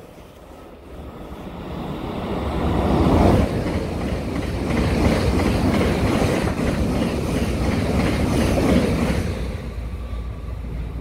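A 16-car Bombardier Z50000 (Francilien) electric multiple unit passes through at about 140 km/h without stopping. The sound builds over the first few seconds, stays loud while the cars rush by, and fades near the end.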